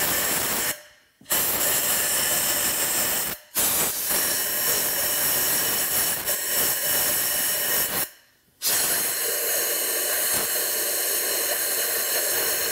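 Compressed-air blow gun hissing in long blasts into the recessed spark plug wells of a V8 cylinder head, blowing out the dirt so it cannot fall into the cylinders when the plugs come out. The air stops briefly three times between blasts.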